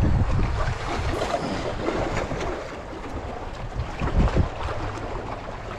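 Wind buffeting the microphone in gusts, strongest in the first second and easing after, over the wash of waves on the lakeshore.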